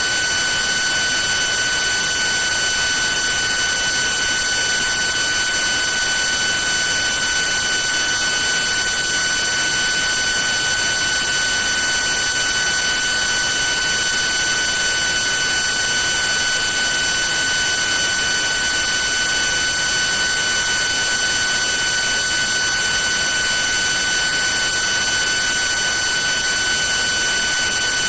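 NSK HTS-1500S high-speed CNC spindle running steadily at speed: a constant high-pitched whine with several overtones over a steady hiss.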